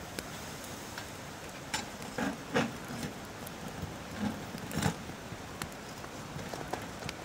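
Short-handled metal shovel scraping and clinking against a small wood stove's firebox as ashes and embers are raked out: a few short scrapes about two seconds in and again just before five seconds, over a steady background hiss.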